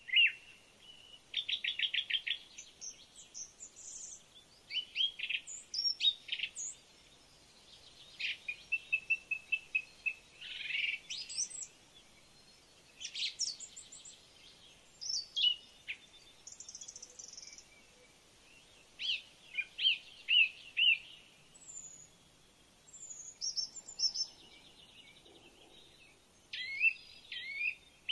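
Birds singing: a run of varied chirps, rapid trills and whistled slurring notes in short phrases, with brief pauses between them.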